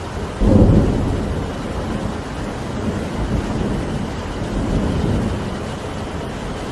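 Steady rain with a thunderclap about half a second in that rumbles on and slowly fades.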